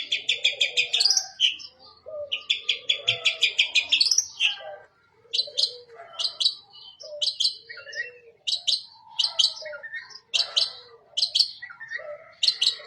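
Long-tailed shrike (cendet) singing a loud, varied song. It opens with two fast trills of rapidly repeated notes, then gives a run of sharp, high double notes about once a second. A full song packed with mimicked phrases.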